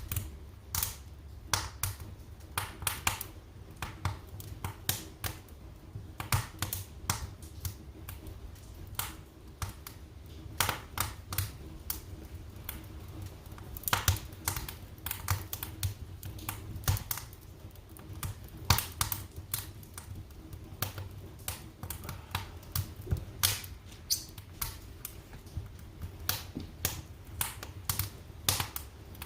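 Wood fire burning in a fireplace: irregular crackles and sharp pops over a low steady rumble of the flames.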